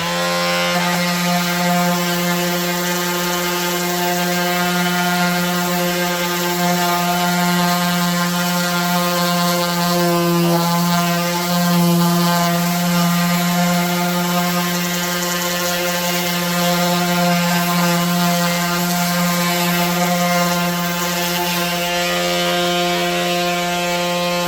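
Power sander switched on and running steadily with a loud, even hum while sanding a wooden table.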